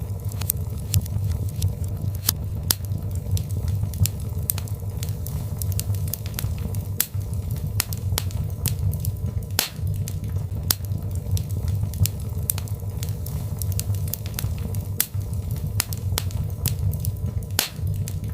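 Birch log fire crackling and popping, with irregular sharp snaps over a steady low rumble of the flames.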